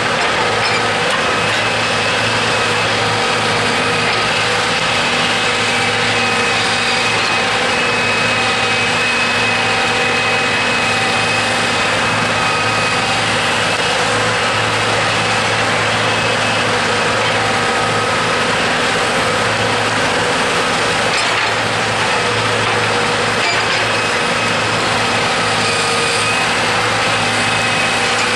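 Log truck's diesel engine running steadily, its pitch holding level throughout.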